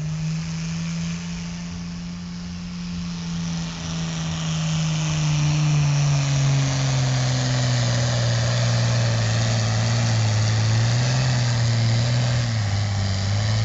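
Turbocharged diesel pulling tractor running flat out while dragging a weight-transfer sled. It grows louder a few seconds in, and its note slowly sinks in pitch as the engine lugs down under the mounting load. The engine cuts off sharply near the end as the pull stops.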